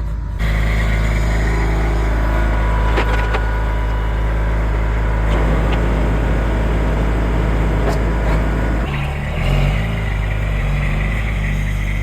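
Engine of a hydraulic log-loading machine running under load, getting louder about half a second in, with a few sharp metallic clanks. About 9 s in the engine note changes and a high hydraulic whine comes in.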